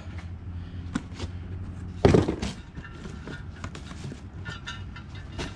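Handling of exhaust parts and cardboard packaging: a few light knocks, then one heavy thump about two seconds in, over a low steady hum.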